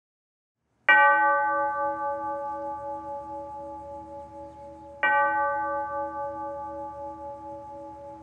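Church bell tolling: two strikes about four seconds apart, each ringing on and slowly fading.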